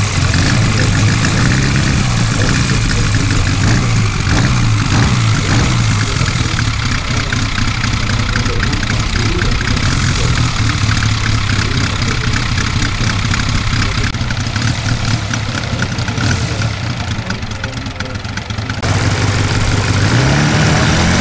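Valach 280 B4 four-cylinder petrol engine of a half-scale Piper Clipped Wing Cub model running steadily at low throttle as the plane taxis, then throttling up with a rising pitch near the end.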